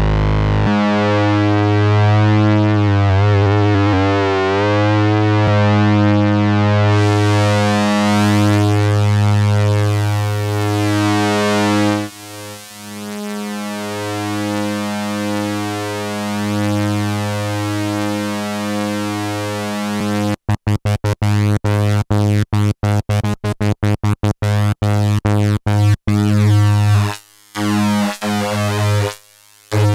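Modal Electronics Cobalt5S synthesizer playing a sustained, bass-heavy chord, its tone wavering and shifting as the knobs are turned. About two-thirds of the way through, the sound starts chopping on and off rapidly, several cuts a second.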